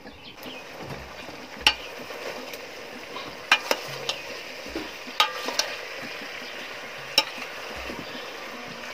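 A metal spoon stirring chopped green bananas (matoke) in a metal cooking pot, with several sharp clinks of the spoon striking the pot at uneven intervals.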